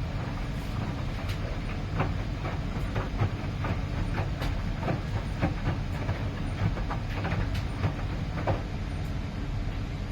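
Miele PW 6080 commercial washing machine running, its large drum turning with a steady low rumble and irregular knocks as the load tumbles inside.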